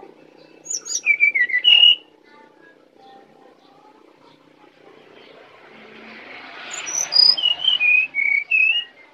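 Brown-chested jungle flycatcher singing: two short phrases of clear whistled notes, each starting high and stepping down in pitch. The first comes about a second in, the second near the end.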